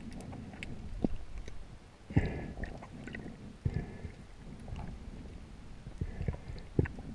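Muffled underwater sound picked up through a camera's waterproof housing: a constant low rumble of moving water with a few gurgling surges and scattered sharp knocks and clicks.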